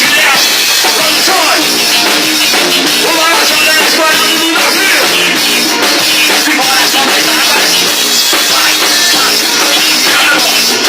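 Live band playing a swung xote, a forró dance rhythm, with the drum kit driving the beat under the melody; loud and steady throughout.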